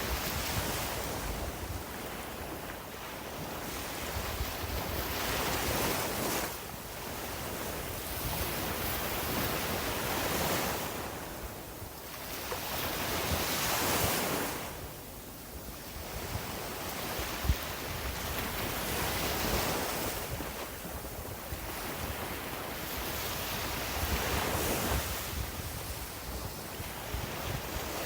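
Sea waves breaking on a beach, the surf swelling and fading every four to five seconds, with wind rumbling on the microphone. A single sharp click about two-thirds of the way through.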